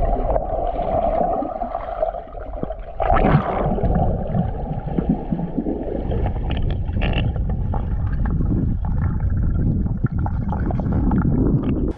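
Underwater sound picked up by a submerged camera in a lake: a steady muffled rumble of water with gurgling and scattered small clicks. A steady mid-pitched hum runs through the first three seconds.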